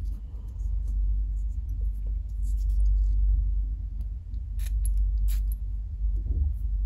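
Handling of a glass perfume bottle, with its cap and ribbon being worked at: a few faint high clicks, the two clearest about four and a half and five seconds in, over a steady low rumble.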